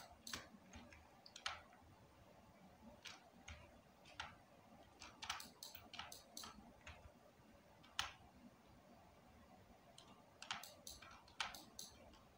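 Faint, irregular clicks of a computer mouse and keyboard being worked, a dozen or so scattered through, some in quick little clusters.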